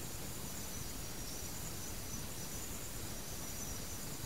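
Steady background hiss and low hum of a sermon recording, with faint high, steady tones on top.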